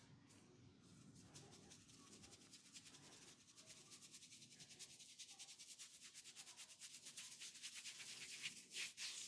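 Hands rubbing quickly back and forth over skin or hair in a massage, about seven strokes a second, growing louder toward the end.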